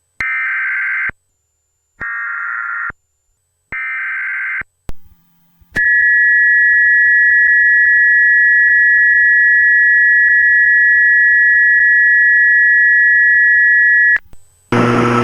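Emergency Alert System tones: three short bursts of screechy data tones about a second each, then a loud, steady two-tone attention signal held for about eight seconds. A loud buzzy burst cuts in right at the end.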